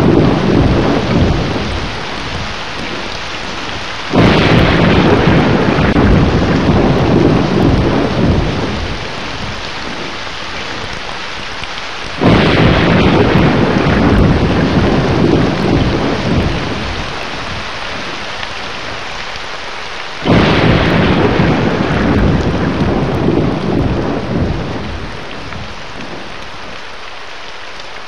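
Thunderstorm: steady rain with three thunderclaps about eight seconds apart, each breaking suddenly and rumbling away over several seconds.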